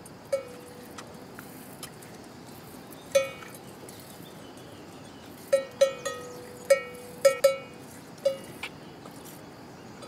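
A bell hung on a cow's neck clanking irregularly as the cow shifts, about ten rings, most of them bunched together in the second half.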